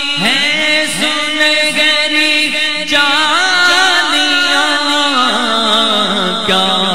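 Devotional naat singing: a voice carrying long, wavering melismatic lines over a steady held drone.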